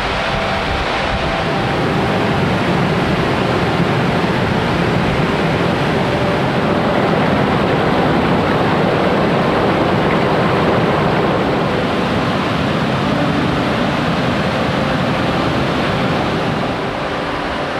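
Fast-flowing mountain creek rushing over rocks and small cascades: a steady, dense rush of water that swells a little in the middle.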